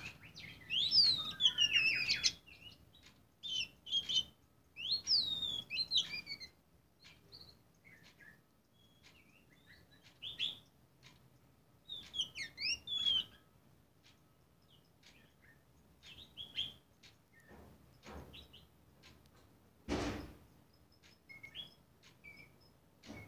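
Caged black magpie-robin (kacer hitam) singing: bursts of sweeping whistles and chirps, rising and falling in pitch, broken by pauses of a few seconds. A single dull knock sounds near the end.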